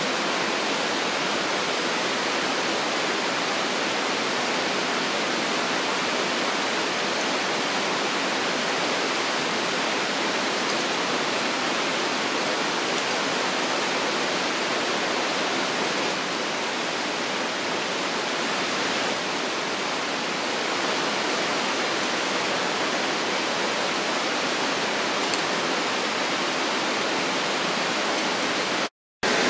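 A steady, even rushing noise, broken by a brief dropout near the end.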